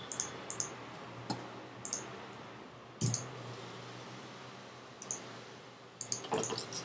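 Computer mouse and keyboard clicks: a few single clicks spaced a second or so apart, a duller thump about three seconds in, then a quick run of clicks near the end.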